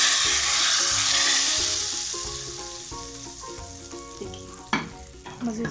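Hot ghee tadka with garlic and mustard seeds poured onto cooked red lentil dal, sizzling loudly at first and dying away over the next two or three seconds. Background music plays underneath, and there is a single knock near the end.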